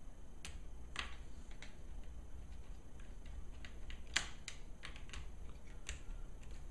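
Irregular small clicks and taps, about fifteen in all, with a cluster of sharper ones about four seconds in: small screws being set and driven with a screwdriver into a laptop's plastic screen bezel.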